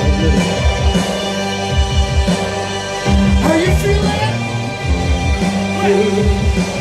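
Live post-punk band playing: a steady kick drum pulse under bass, guitar and keyboards, with a female singer's voice over it.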